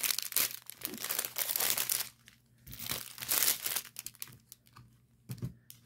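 Small plastic bags of diamond-painting drills crinkling as they are handled and moved, in a dense run through the first two seconds and again in a shorter burst about three seconds in, with a few light clicks after.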